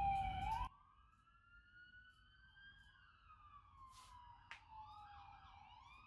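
Faint siren wailing, its pitch slowly rising and falling over several seconds, with two faint clicks about four seconds in.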